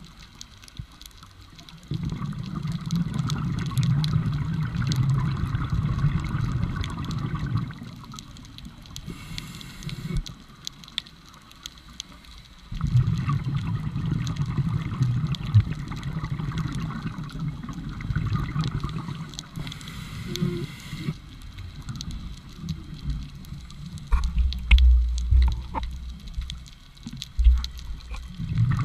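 Scuba diver breathing underwater through a regulator, with long stretches of gurgling exhaled bubbles. The bubbling starts about two seconds in, stops for several seconds, then returns. A few low thumps come near the end.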